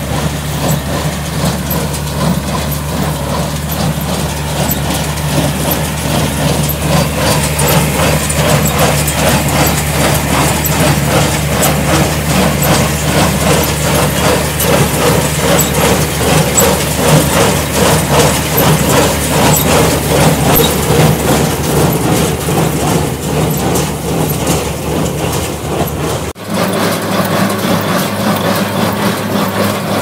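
Tractor diesel engine running steadily while powering a CAM Shaktiman square baler, with the baler's fast, even mechanical clatter on top. The sound cuts abruptly about 26 seconds in to another stretch of the same machinery, with less engine hum.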